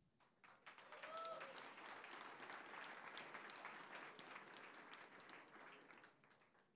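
Audience applauding faintly, building up within the first second and dying away near the end.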